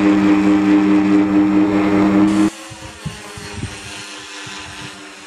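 An RC plane's motor running steadily at high power, heard loud and close with a strong hum. About two and a half seconds in it cuts to the same plane heard faintly from the ground: a thin steady hum with scattered low thumps.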